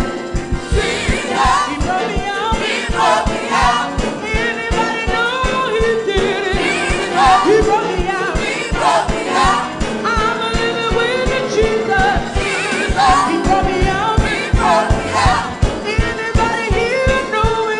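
Gospel choir singing with a live band, a steady drum beat underneath.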